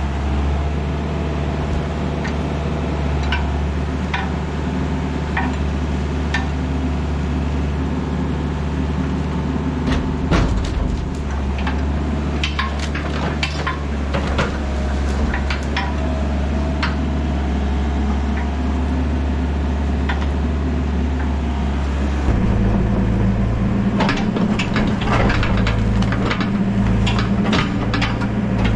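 Mini excavator's diesel engine running steadily while it grabs and swings logs, with scattered wooden knocks and clatters as logs strike one another and the dump truck bed. About 22 seconds in, the engine becomes a little louder and its pitch changes.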